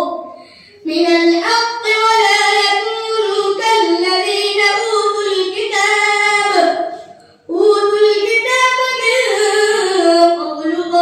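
A boy reciting the Quran in a melodic, drawn-out chant, holding long wavering notes. He pauses for breath just under a second in and again about seven seconds in.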